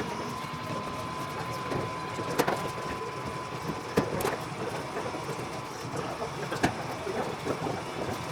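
Hangar work sounds: a few sharp knocks or clicks, spaced irregularly, over a steady background noise with a faint high steady tone.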